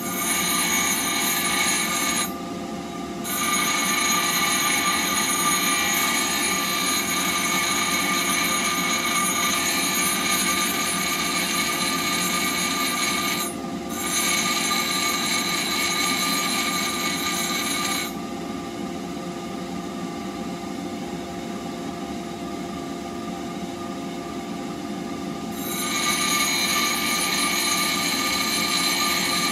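Bench grinder running steadily while a steel blade for a woodturning tool is pressed against the abrasive wheel, giving a harsh grinding hiss over the motor's steady hum. The grinding stops for a moment twice and then for about seven seconds in the latter half while the wheel spins on, before it starts again near the end.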